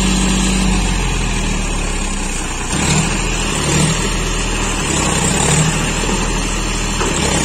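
John Deere 5105 tractor's three-cylinder diesel engine working hard under load, hauling a fully loaded trailer through mud. The note is steady at first, shifts about a second in, and from about three seconds in it swells in uneven surges as the engine struggles.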